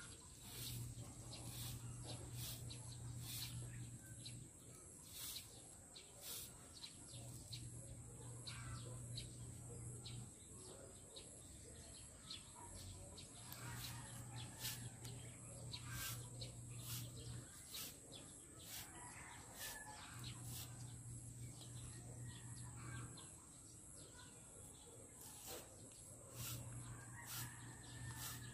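Quiet rural ambience: birds calling, among them a rooster crowing faintly, over a steady high insect drone, with scattered clicks and a low hum that comes and goes every few seconds.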